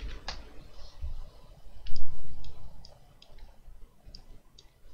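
Computer mouse and keyboard clicks, about eight short clicks spread out, with a low thump about two seconds in.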